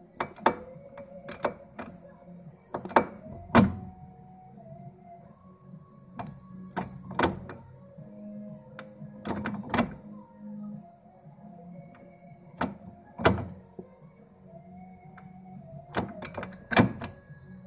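Toyota MR2 SW20 S54 gearbox shift linkage clicking and clunking as the shifter is moved across the gates and into the gears, giving sharp knocks every second or two, some in quick pairs. The shifter cable ends ride on newly fitted CRW bushings and a replacement roller bearing.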